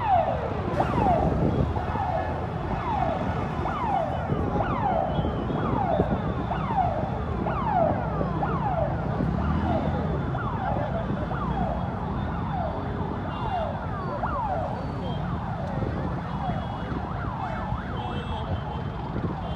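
Emergency vehicle siren sounding in a repeating falling sweep, about every three-quarters of a second, over a low steady rumble of street noise. The sweeps grow fainter in the second half.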